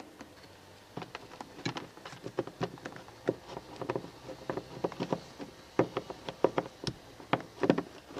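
Irregular clicks and light knocks of hard plastic parts of a Gerni pressure-washer trigger gun being handled and pushed together by hand, starting about a second in.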